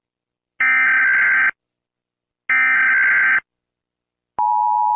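Emergency Alert System alarm: two of the header's digital data bursts, each about a second long and about two seconds apart. Near the end the steady two-tone EAS attention signal starts.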